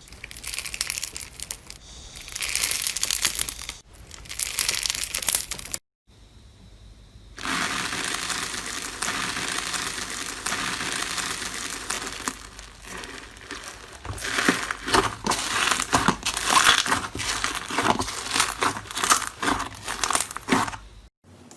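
Slime being squeezed, pressed and poked by hand, giving dense crackling and crinkling, in several separate clips joined by abrupt cuts, with a brief drop to silence about six seconds in. The crackles come thickest and sharpest in the last several seconds.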